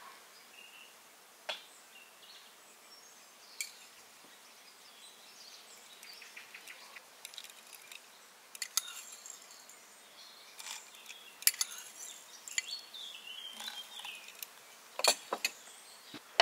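Kitchenware being handled: scattered light clinks and knocks of glass and utensils, sparse at first and more frequent in the second half, the loudest near the end.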